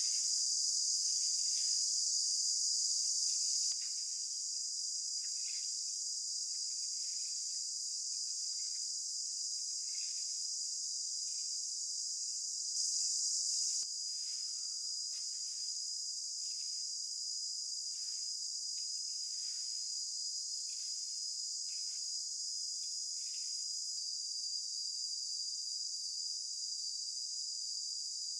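A steady, high-pitched chorus of crickets or similar insects, with a rake scratching over dry leaves and soil in quick repeated strokes. The scraping stops about 24 seconds in, leaving only the insects.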